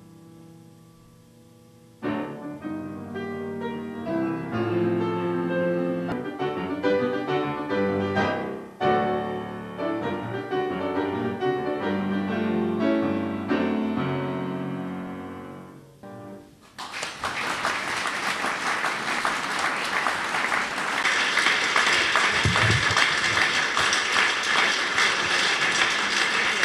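Grand piano solo: a chord fades away, then a passage of notes begins about two seconds in and ends after about fourteen seconds. The audience then breaks into applause.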